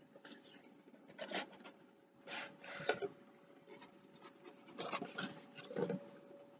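Cardboard mailer box being handled and its lid flap opened, making a series of short scraping and rustling noises about a second in, two to three seconds in, and again around five to six seconds in.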